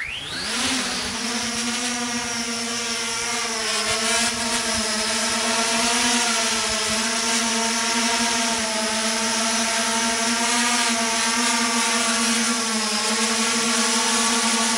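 Multirotor drone taking off: its motors spin up with a fast rising whine, then settle into a steady propeller buzz as it hovers and flies.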